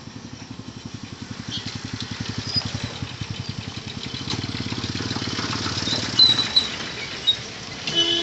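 Small engines of passing road traffic, led by a Tata Ace mini truck's engine chugging with a rapid pulse as it drives past close by, with motorcycles. A few short high-pitched chirps come around six to seven seconds in, and a brief horn beep near the end.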